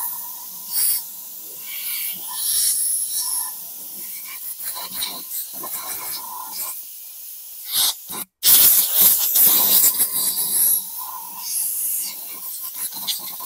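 Compressed air from a blow gun hissing in repeated short blasts, louder in the second half.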